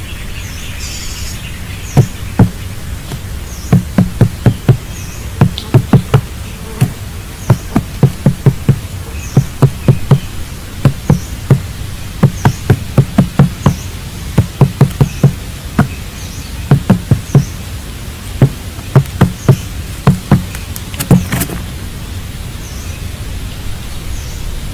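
A long run of irregular knocks and taps, often in quick clusters of two to four, over a steady background hiss, with a faint high chirp repeating about once a second.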